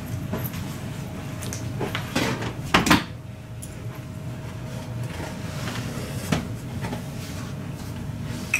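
Handling noise as a 55-inch TCL LED TV is lifted and tilted up onto its edge: a few knocks and rubs of its plastic casing, the loudest about two to three seconds in, over a faint steady hum.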